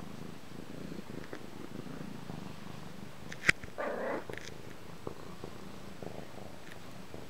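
Domestic cat purring steadily while being stroked. About three and a half seconds in there is a sharp click, followed at once by a short pitched call.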